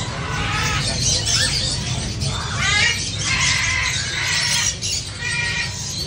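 Many caged birds chirping and squawking, short calls overlapping with a denser burst of calls in the middle, over a steady low hum of background noise.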